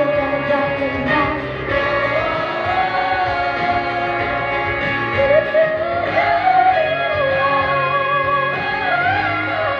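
Choir singing with amplified voices over sustained electronic keyboard chords, the voices holding long, wavering notes.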